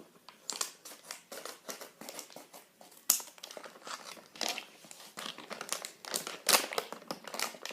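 Corn starch packet crinkling and rustling in irregular crackles as it is cut and pulled open with scissors.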